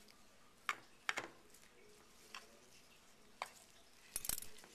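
Dissecting scissors clicking sharply a few times as the skin is snipped, then a louder clatter about four seconds in as the metal scissors are set down in the metal dissecting tray.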